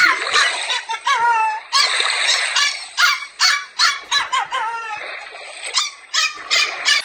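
Pomeranian puppy yapping in quick, high-pitched yips, about two or three a second, some sliding up and down in pitch.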